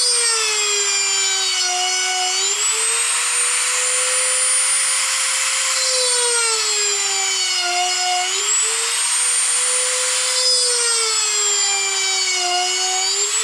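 Handheld rotary tool running at high speed while drilling small holes into a wooden electronics-bay sled: a steady high whine that sags in pitch three times as the bit bears into the wood, then picks back up.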